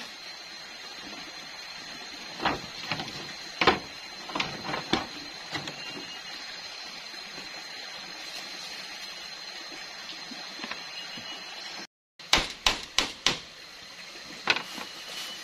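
Irregular sharp knocks on bamboo as slats are tapped and fitted into a bamboo floor, coming as single taps and short clusters. The sound drops out for a moment after about twelve seconds, then a quick run of several knocks follows.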